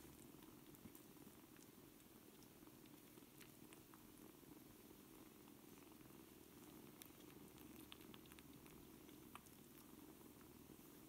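Faint, steady cat purring from a mother cat and her four-week-old kittens as they nurse, with a few small clicks scattered through.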